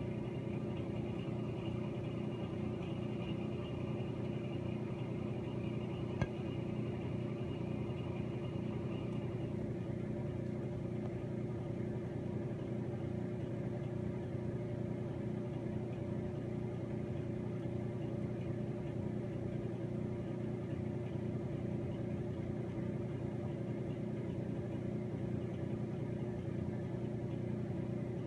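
Steady low mechanical hum made of several fixed pitches, with a faint higher whine that stops about nine seconds in and a single click about six seconds in.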